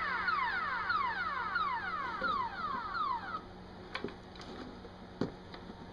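Siren-like alarm: rapid high sweeps, each falling in pitch, repeating several times a second, which fade out about three and a half seconds in; a few faint knocks follow.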